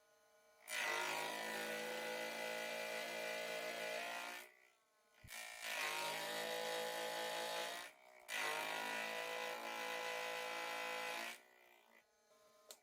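A workshop power tool's electric motor run three times, about three to four seconds each, with a steady motor note under a dense rasping noise. Each run winds down in pitch as it is switched off.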